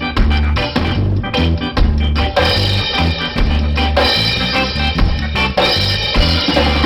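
Ska band playing an instrumental passage, with drum kit and a strong, pulsing bass line.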